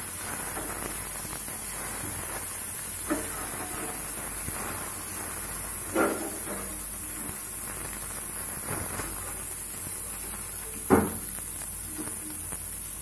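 Brinjal pieces frying in hot oil in a pan with a steady sizzle, broken by three sharp knocks of a spatula against the pan, the loudest about eleven seconds in.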